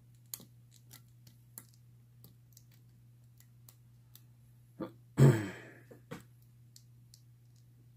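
Faint, scattered clicks and ticks of a lock pick working the pins of a Best padlock's 7-pin interchangeable core under a tension wrench, over a steady low hum. About five seconds in, a brief loud vocal sound from the picker cuts across it.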